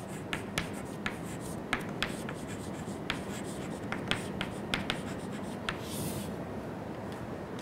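Chalk writing on a chalkboard: a run of quick taps and short scratches as letters are written, with a longer scrape about six seconds in as a line is drawn under the words.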